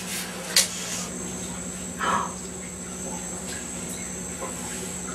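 A steady high-pitched insect trill that starts about a second in, over a low steady hum. There are a few short scrapes near the start and a brief louder sound about two seconds in.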